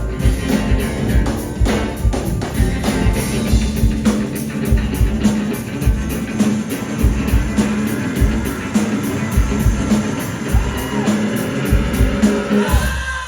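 Live rock band playing with no vocal line: a steady drum beat over a heavy bass line.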